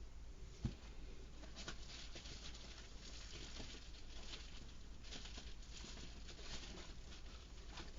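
Faint handling noise of metal sockets being tugged at on their holder clip: a run of small scrapes and clicks, with one soft thump a little under a second in.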